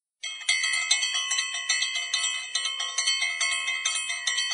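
Bell-like chimes ringing in a quick, even rhythm of about four strikes a second, each strike ringing on into the next. It is the jingle of a like-and-subscribe end-screen animation, and it starts a moment in.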